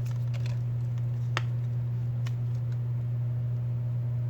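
Steady low electrical hum, with a few faint small clicks of tweezers and phone parts being handled; the sharpest click comes about a second and a half in.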